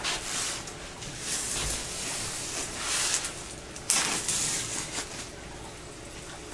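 Packing tape being slit with a knife and pulled from the lid seam of a styrofoam shipping box: a run of scratchy scraping and tearing noises, the sharpest and loudest about four seconds in.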